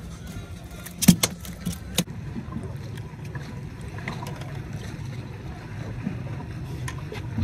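Steady low rumble of wind and water on a small boat, with a few sharp knocks and splashes a second or two in as a hooked speckled trout is swung out of the water beside the hull. The loudest knock comes a little after one second.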